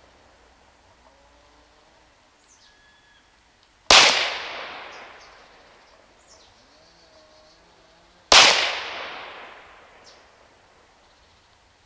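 .22 PCP air pistol built on a Huben K1 action firing two shots about four and a half seconds apart, each a sharp crack with a long fading echo.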